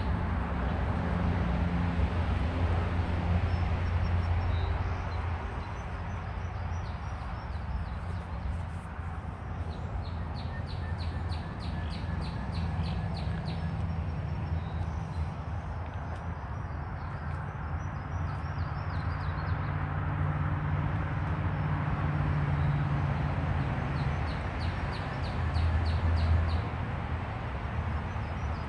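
Birds chirping in repeated rapid high trills over a steady low hum.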